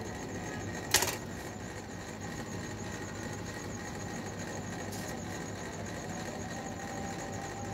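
Steady low background hum, with one sharp click about a second in and a much fainter click near five seconds.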